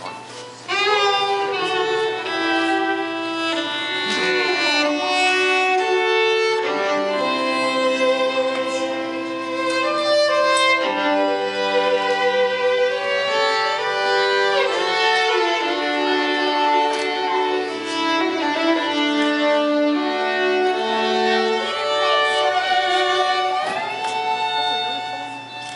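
Two violins playing a tune together in harmony, with long held notes and notes that slide up into pitch. A new phrase comes in strongly about a second in.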